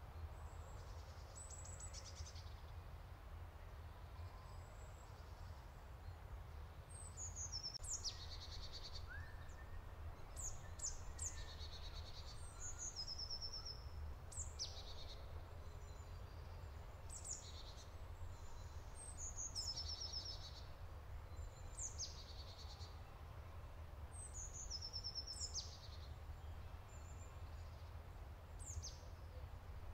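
Songbirds singing short, high phrases over and over, some ending in fast trills, beginning several seconds in, over a steady low rumble.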